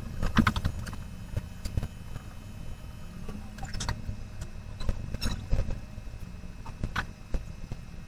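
Fast-forwarded background noise: a steady low hum with scattered short clicks and knocks.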